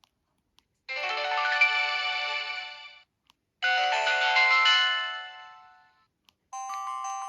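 Samsung SGH-D500 mobile phone playing short built-in alert tones one after another: two separate chiming tones of many notes together, each lasting about two seconds and fading out, then a third tone with notes stepping in one by one starting near the end.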